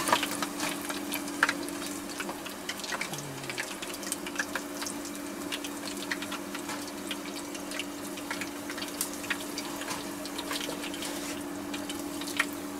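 Chicken karaage deep-frying in a pot of oil: a steady sizzle full of small crackles and pops. A steady low hum runs underneath.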